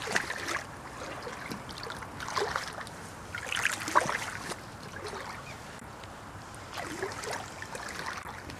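Footsteps sloshing and squelching through shallow marsh water and mud, in four separate bouts, the loudest about four seconds in.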